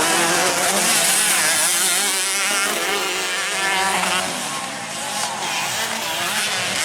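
Several racing dirt bikes running together on a grasstrack, their engines revving with pitch rising and falling as riders work the throttle.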